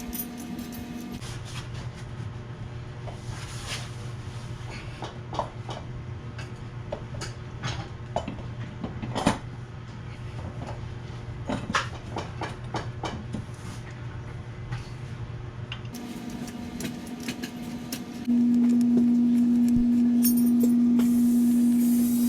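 Steady machine hum with scattered clicks and knocks from handling tools and parts. About 18 seconds in, a much louder steady hum starts.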